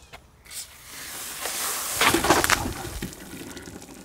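Fizzy cola gushing out of an upturned plastic soda bottle and splashing. The hiss builds up, is loudest about two seconds in, then tails off.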